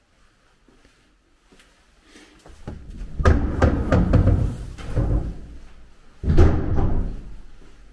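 A run of knocks and rattles lasting a few seconds, then a sudden heavy bang about six seconds in that dies away over about a second.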